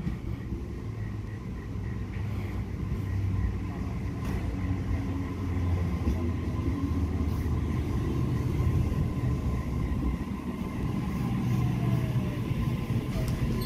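Sydney Trains Waratah double-deck electric train pulling into the platform and slowing down: a steady low rumble of the train on the rails, with a whine that falls in pitch in the last few seconds as it brakes.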